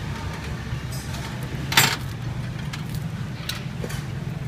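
Light clicks and clinks of food preparation on a stainless steel counter, with one louder, sharper clack a little under two seconds in and a few softer ticks later, over a steady low hum.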